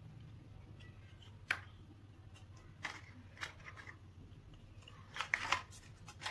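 Light clicks and taps from a replica AirPods Pro's plastic charging case and its box being handled, with a few scattered knocks and several close together about five seconds in.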